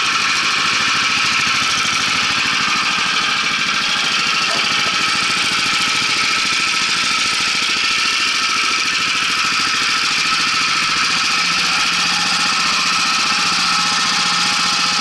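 Skiper walk-behind tractor's single-cylinder four-stroke petrol engine running steadily, warming up just after a recoil cold start with the choke closed.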